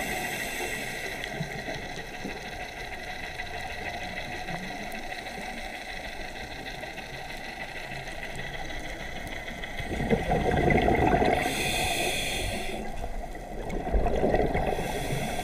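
A scuba diver breathing through a regulator, heard underwater through the camera housing: a muffled rush of exhaled bubbles about ten seconds in and again near the end, over a quieter steady underwater hiss.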